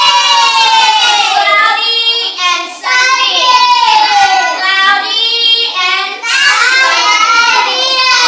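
Young children singing a song together without instruments, in three phrases with short breaks between them.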